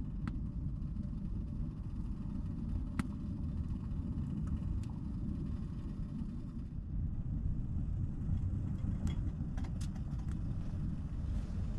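Distant highway traffic as a steady low rumble, with a few faint clicks scattered through it.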